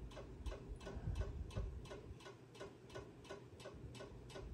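Steady, rapid, faint ticking, about four evenly spaced ticks a second, like a clock's tick.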